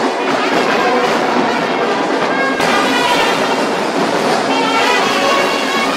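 Brass band playing, trumpets and drums together, loud and steady.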